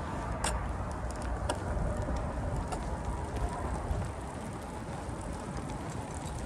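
Steady outdoor background noise, a low rumble with a hiss over it, with a couple of faint clicks in the first two seconds.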